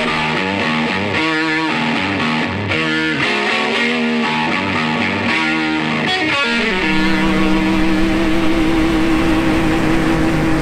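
Background guitar music: picked notes change in pitch, then about two-thirds of the way in it settles into a long held low chord.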